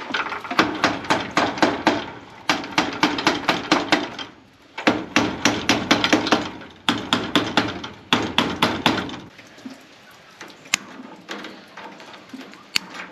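Hammer tapping rapidly on wire mesh against a wooden door frame, about four or five blows a second in three runs with short breaks between. After that it goes quieter, with two sharp clicks near the end.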